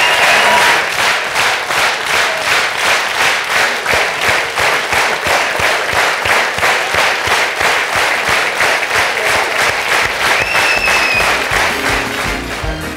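Theatre audience clapping together in a steady rhythm, about two to three claps a second: a rhythmic ovation. A brief high whistle-like tone sounds about ten seconds in, and music starts near the end.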